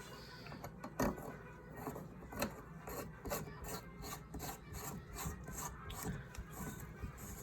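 Irregular scraping and clicking from hand work, a few short strokes a second, with a sharper knock about a second in.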